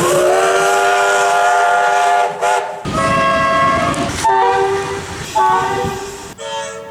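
Multi-note train air horn sounding a chord: one long blast of about two seconds whose pitch rises as it comes in, then several shorter blasts of about a second each, over the running noise of the train.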